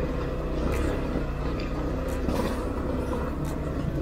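Motorcycle engine running steadily, with a few light clicks and knocks over it.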